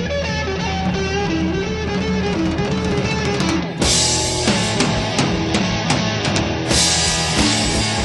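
Blues-rock instrumental recording: an electric guitar plays a wavering, bending line, then about four seconds in the full band comes in harder with drums and crashing cymbals.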